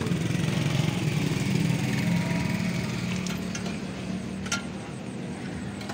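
A small engine running, its hum growing louder about a second in and easing off after the middle, with a sharp click near the end.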